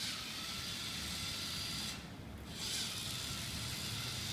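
LEGO Mindstorms EV3 large motors driving a small robot car, a steady whine of motors and plastic gears with hiss. The sound drops out briefly about two seconds in, then comes back.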